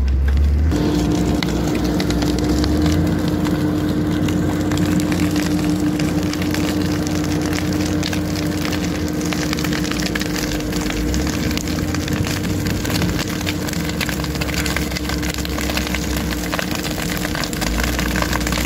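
Case wheel loader's diesel engine running steadily while it works, a constant drone that sets in about a second in.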